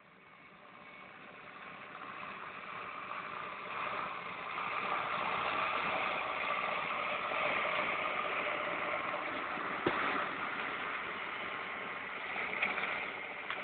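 Farm tractor engine running as it drives past pulling a twin-rotor grass rake, growing louder over the first few seconds as it comes close. A single short knock about ten seconds in.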